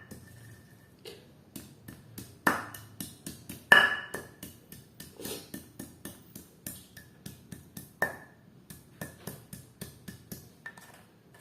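Pestle pounding turmeric and nutmeg in a mortar: a steady run of sharp knocks, about three a second, many followed by a short ringing ping. A few strokes are much louder than the rest.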